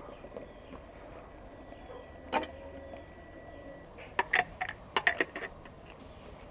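Tableware clinking and knocking: one sharp clink a little over two seconds in, then a quick run of about eight clinks over a second, starting about four seconds in, some with a brief high ring.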